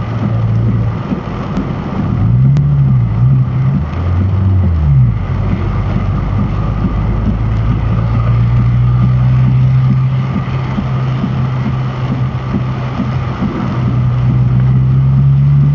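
A car's engine running as it drives through heavy rain on flooded roads, heard from inside the cabin, with rain and tyre spray hissing against the car. The engine note rises and falls a couple of times about two to five seconds in, then holds steady and slowly climbs.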